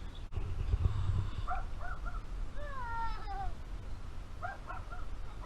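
Farm animals calling: short rising-and-falling cries in quick runs of about three, twice, and one longer falling cry about three seconds in. A low rumble sounds about a second in.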